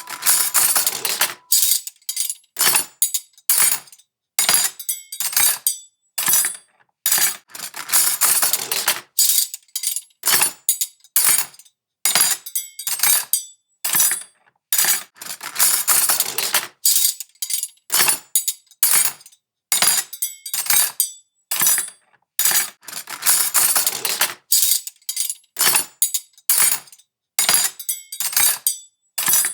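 Metal cutlery being placed into a kitchen drawer: knives, forks and spoons clinking and clattering against each other in irregular bursts, some single clinks and some longer rattling handfuls, with brief pauses between them.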